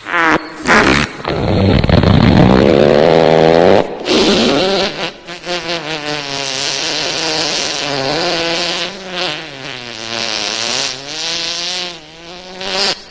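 Wet fart sound effects, buzzy and pitched. A couple of short blasts come first, then one of about three seconds rising in pitch, then a long fart of about nine seconds that wavers up and down in pitch.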